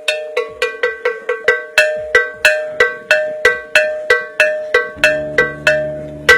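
A metal bell, cowbell-like, struck in a quick, fairly even rhythm of about three ringing strikes a second, with the last strike the loudest. A low steady drone joins about five seconds in.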